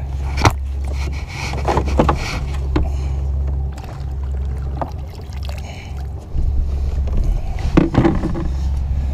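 Gear being handled in a fishing kayak: scattered knocks and clatters of a landing net and rod against the plastic hull, the loudest cluster near the end, over a steady low rumble.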